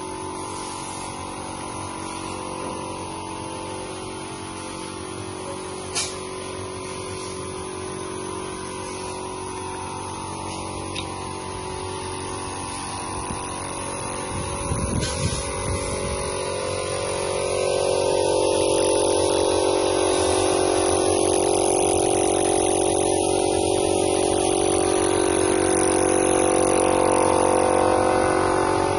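A motor running steadily, growing louder about seventeen seconds in, with a few short clicks over it.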